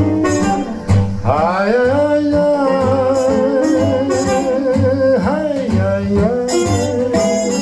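Country music played back through a Sansui SP-2002 loudspeaker: plucked guitar with a long held note that wavers in pitch, then further held notes near the end.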